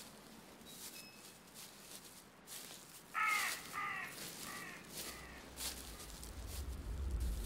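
A crow cawing three times in quick succession, each caw fainter than the one before. A low rumble swells in near the end.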